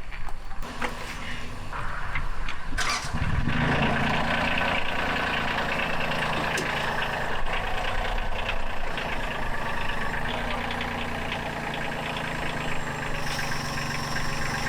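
A two-stroke V8 Detroit Diesel 8V92 truck engine catches about three seconds in and then keeps running steadily. This is after trouble starting it on a makeshift direct fuel feed.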